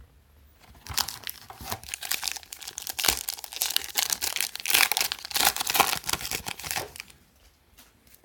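A trading-card pack wrapper being torn open and crinkled, a dense run of crackling for about six seconds.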